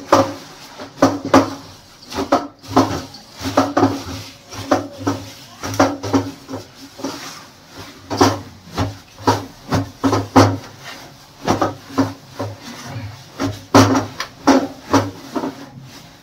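A silk saree soaked in white petrol (MTO) being kneaded and squeezed by hand in a steel tray: repeated wet rubbing and squeezing strokes, irregular, about two a second.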